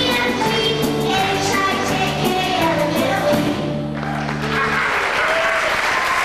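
A live song for voice, piano, bass and drums ends on its final sung phrase and a held bass note, then audience applause starts about four seconds in.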